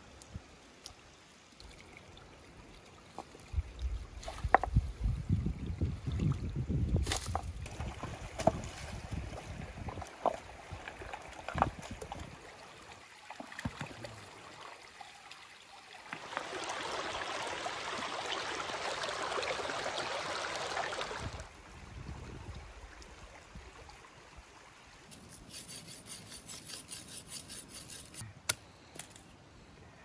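Water sloshing and running as hands work in a shallow rocky stream, a steady rush lasting about five seconds that starts and stops abruptly. Before it come low rumbling and scattered knocks, and near the end a faint quick ticking.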